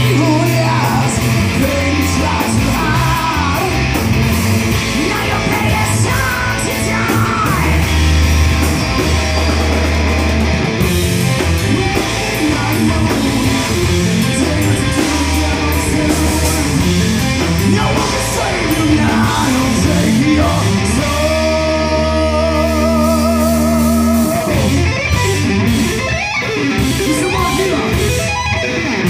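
Live heavy metal band playing: distorted electric guitar, bass guitar and drum kit, with a male singer's vocals over them. About 21 seconds in, the band holds a chord for roughly three seconds, with one wavering high note above it.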